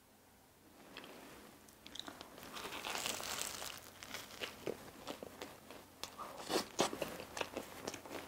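Crusty, flaky cream-filled pastry crackling as it is bitten into and chewed close to the microphone, starting about two seconds in.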